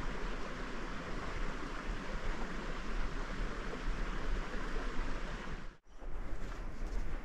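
Steady outdoor rushing noise with a flickering low rumble, cut off abruptly near the end and replaced by a quieter ambience with faint ticks.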